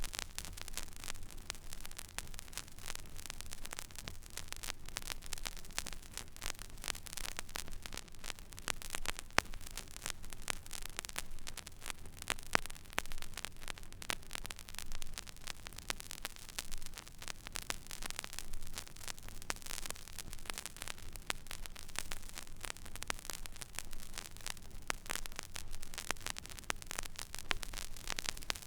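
Turntable stylus tracking the empty, silent groove of a vinyl record: dense surface crackle of small clicks over a steady hiss, with occasional louder pops and a low hum underneath.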